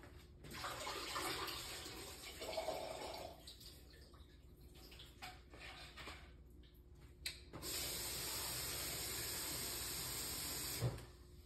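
Kitchen tap running water into a vessel, twice: a rush for about three seconds near the start, then a steady flow for about three seconds near the end that cuts off sharply.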